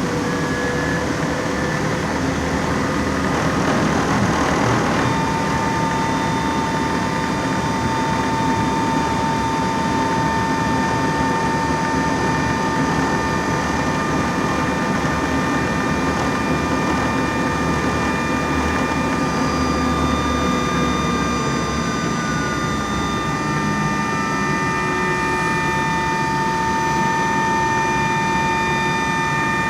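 Inside a LAZ E-183D1 electric trolleybus under way: the electric traction drive gives a steady multi-tone whine over continuous road and cabin rumble. The whine shifts in pitch now and then as speed changes.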